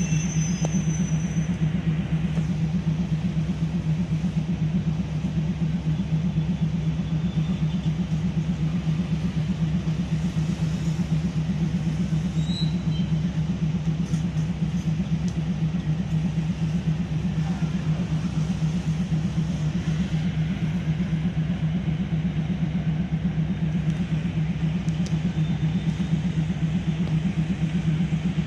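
Steady low engine hum of the train, heard from inside the carriage, even in pitch and level throughout with no rise or fall of revs.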